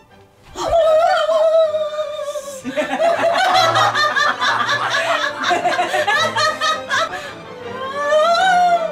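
Hearty laughter over background music, breaking in loudly about half a second in after a quiet moment.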